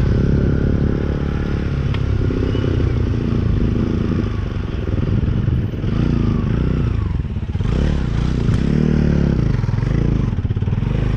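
Off-road motorcycle engine running under load, its revs rising and falling several times in the second half.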